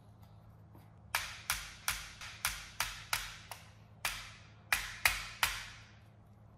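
A small hammer tapping the longer pin back into a Trinity Hi-Capa airsoft pistol's grip to secure the enlarged magazine well. About a dozen sharp taps, each with a short ring, starting about a second in and stopping a little before the end.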